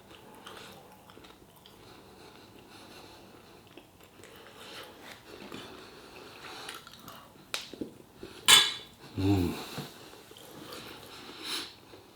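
Quiet eating at a table: cutlery on a plate, then a sharp click and a loud, short breathy sniff about eight seconds in, followed by a brief voiced 'mm'.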